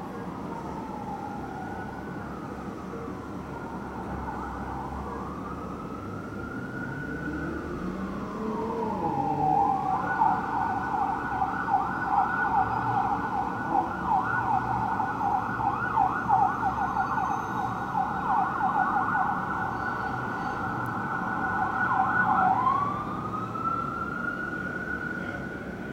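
Fire engine siren on a code 3 response, sliding slowly up and down in a wail. About nine seconds in it switches to a fast yelp, then goes back to a wail near the end.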